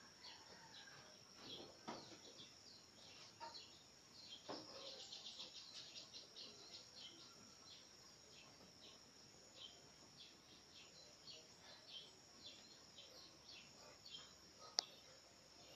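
Near silence: faint, high chirping throughout over a steady high hiss, with one sharp click near the end.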